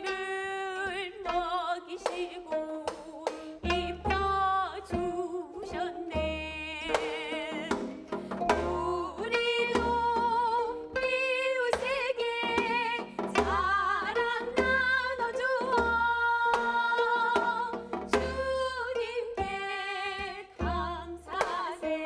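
Korean traditional ensemble of two gayageum zithers plucking a hymn tune, with bending, vibrato-laden notes, over regular low janggu drum strokes, joined by a woman singing.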